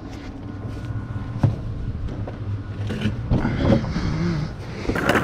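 Vehicle engine idling steadily, with a knock about one and a half seconds in and some scraping near the end.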